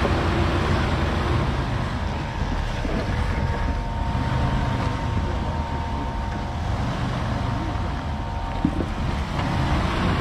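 Off-road 4x4's engine running steadily, with a faint thin whine over it.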